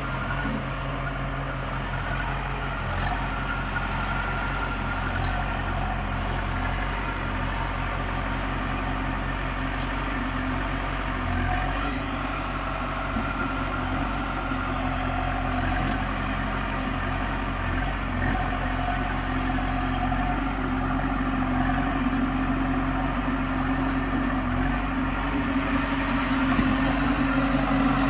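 A heavy diesel engine running steadily at low revs with a rapid low chugging throb, getting gradually louder near the end.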